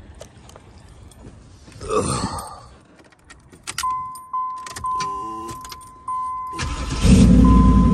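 Keys jangle and a dashboard warning chime beeps on and off with the door open. About six and a half seconds in, the fourth-generation Chevrolet Camaro's engine cranks and starts, then runs at a steady idle on freshly replaced spark plugs. The owner hears none of the earlier puffing misfire.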